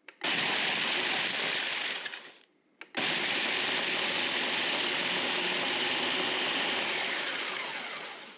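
Ninja food processor crushing dry vanilla wafers into crumbs, run in two pulses: about two seconds, a short pause, then about five seconds, each winding down as it stops.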